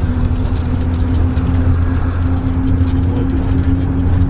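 Bus motorhome's engine running steadily under way, heard from inside the cab: a loud low rumble with a steady drone that sets in right at the start, mixed with road noise.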